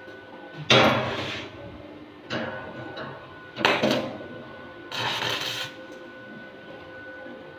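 Electric arc welding on the steel tank stand: the arc crackles and sizzles in four short bursts, each about half a second to a second long, as the welder strikes and breaks the arc.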